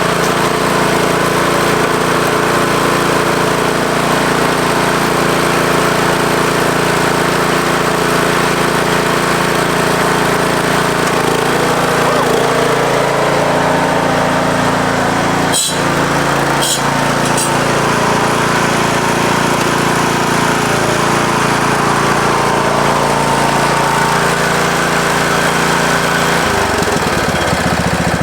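Craftsman T110 riding mower's Briggs & Stratton 17.5 hp engine running steadily, brought back to life after years of sitting. A few sharp clicks come a little past halfway, and the engine's note shifts lower near the end.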